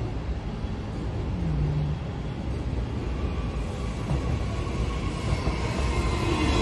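Queensland Rail NGR electric multiple-unit train approaching and running into the platform: a low rumble that grows steadily louder, with a whine joining in near the end as the train draws alongside.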